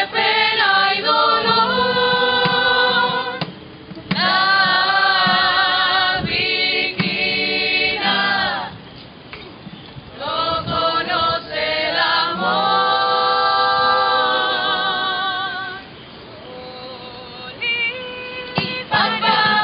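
An estudiantina, a student rondalla, sings in chorus with vibrato, backed by guitars and other plucked strings. The sung phrases break off briefly between lines, with a longer quieter stretch near the end before the voices come back in.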